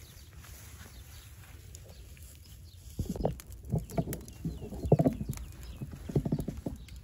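Dry straw crackling and rustling at a small straw fire as it flares up, starting about three seconds in as a run of irregular sharp crackles and knocks.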